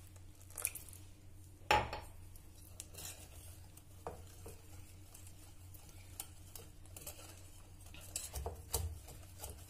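Wire whisk stirring a thick semolina and curd cake batter in a bowl, its wires scraping and tapping the bowl in light, irregular clicks. One louder knock comes about two seconds in.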